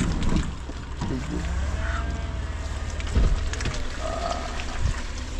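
Car driving slowly over a rough, muddy dirt road, heard from inside the cabin: a steady low rumble of engine and tyres, with a heavy thump about three seconds in as the car jolts over a rut.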